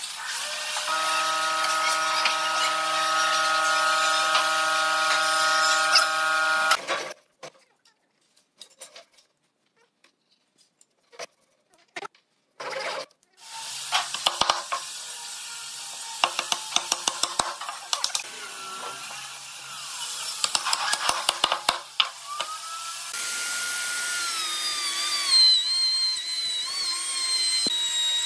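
Wood being sawn for several seconds, then a pause. Next comes a run of sharp wooden mallet taps driving a tenoned pine post into a mortised base. Near the end a plunge router starts and runs with a high whine.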